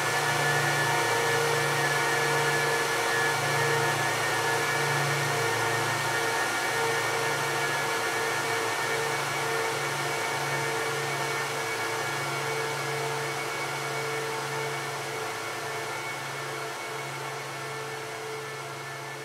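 Cooling fans of an Apple Xserve 2008 server and Xserve RAID running: a steady whir with a low hum that throbs slowly, gradually getting quieter.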